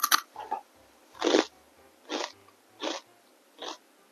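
Close-miked chewing of crunchy food: a couple of sharp clicks at the start, then four separate crunching chews under a second apart, the loudest about a second in.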